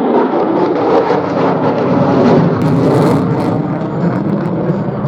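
F-35A Lightning II's jet engine, a Pratt & Whitney F135 afterburning turbofan, in a loud low-altitude pass, the noise growing brightest and loudest around the middle.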